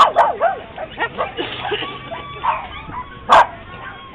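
Small dogs yipping and whining, with one sharp bark right at the start and another about three and a half seconds in.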